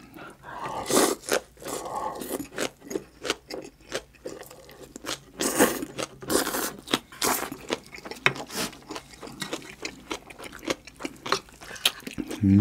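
Close-miked eating: a person chewing a mouthful of green onion kimchi, with many short, irregular crunches and wet mouth sounds.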